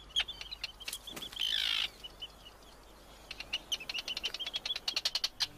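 Terns calling during courtship feeding, as a sand eel is handed to a mate. Short high calls repeat at first, with a harsher, longer call about a second and a half in. After a short lull comes a fast chattering run of calls that speeds up near the end.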